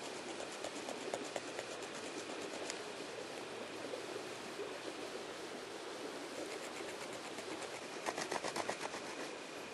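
A stone flake sawing back and forth across a wooden arrow shaft to cut a notch: a scratchy rasp of quick strokes, about ten a second, loudest in a run near the end. A steady background rush lies under it.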